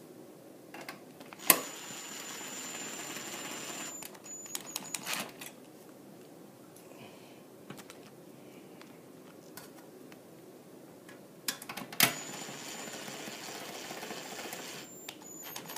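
Small electric screwdriver running twice, each time for about two and a half seconds, driving machine screws in, with a thin steady whine over its motor noise. Clicks and light taps of handling come between the two runs.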